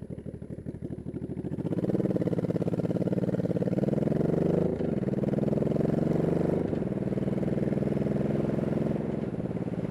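1985 Honda Shadow VT700C's V-twin engine under way. It picks up a couple of seconds in and pulls with rising pitch, and the pitch drops and climbs again twice as it shifts up through the gears. It eases off slightly near the end.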